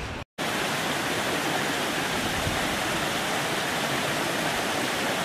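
Steady, even rushing noise with no distinct events, broken by a very brief gap of silence just after the start.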